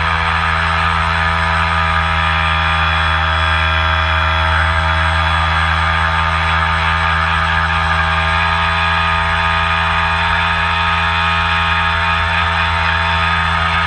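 Homemade RC boat's motor running at a steady speed, a constant whine with several tones over the rush of water along the hull.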